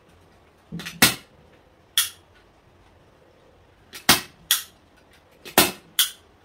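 Staple gun firing staples into fabric over wood, about six sharp snaps at uneven spacing, some with a softer click just before. The staples are the wrong size for the gun, so they are not holding well.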